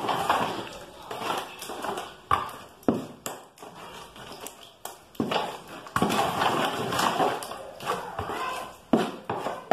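A ladle stirring thick, watered-down wall putty in a basin: irregular wet scraping, with a few sharp knocks of the ladle against the basin. The putty is being mixed with pigment and water into a paint.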